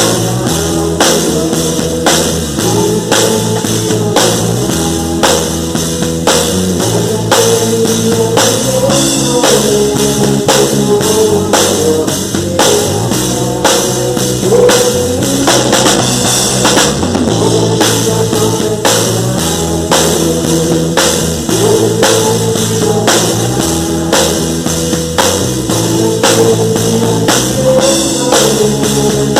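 Worship band playing music: drum kit keeping a steady beat under bass and guitar, with a melody line above.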